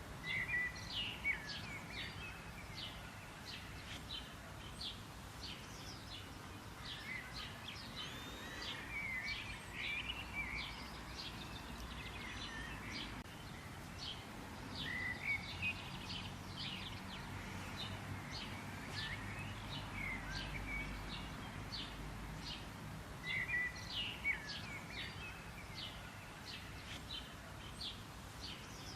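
Birds chirping: many short, high notes in quick runs, with a few longer calls that sweep down in pitch, over a steady low background rumble.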